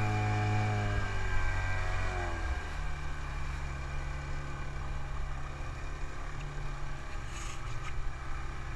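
Outboard motor of a small inflatable boat running under way, its pitch dropping as the revs ease off between about one and two and a half seconds in, then holding steady, over the rush of water against the hull.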